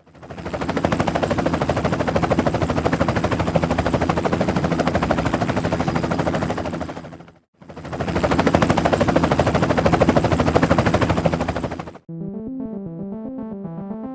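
Loud, rapid, continuous mechanical rattling with a steady hum under it, in two stretches that fade in and out with a brief break about halfway. It cuts off abruptly near the end, and synthesizer music starts.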